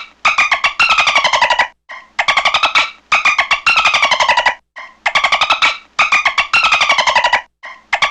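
Bottlenose-dolphin-style burst-pulse chatter: rapid trains of clicks that fall in pitch. They come in pairs, a short burst then a longer one, repeating about every two and a half seconds.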